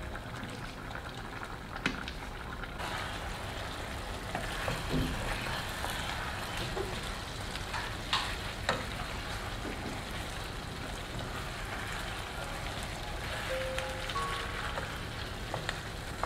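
Chicken pieces simmering and then sizzling in a thickening sauce in a nonstick frying pan, the hiss growing fuller about three seconds in. A metal spatula scrapes and taps against the pan a few times.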